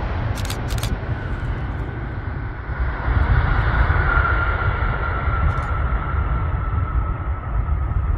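Emirates Boeing 777's twin jet engines during the landing rollout just after touchdown: a continuous rumble of jet noise with a high whine that slowly falls in pitch, getting louder about three seconds in. Two brief clicks about half a second in.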